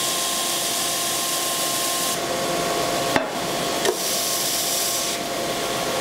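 Stationary edge belt sander running steadily with a high hiss and a steady whine, a wooden block sanded on its belt at first. The hiss changes in strength a couple of times, with a few short knocks partway through.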